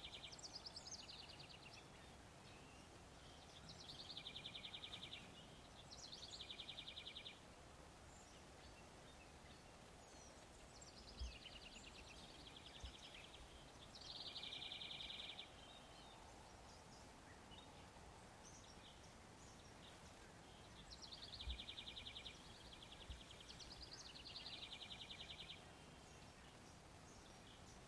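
A small bird singing repeatedly over faint outdoor background noise. There are about seven songs, each a few quick descending high notes running into a fast, even trill about a second long. A few soft low thumps come between the songs.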